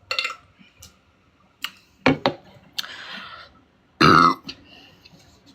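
A woman burping: one loud burp about four seconds in, the loudest sound here, with a few short sharp clicks and a breathy sound before it.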